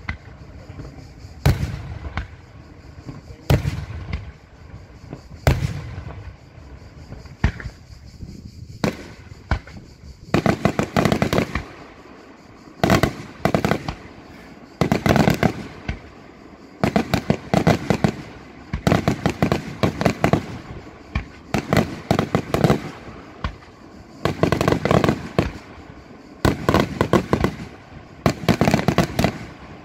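Daytime fireworks: aerial shells bursting overhead with single sharp bangs about every two seconds. From about ten seconds in, they give way to rapid clusters of many bangs and crackles, one burst after another.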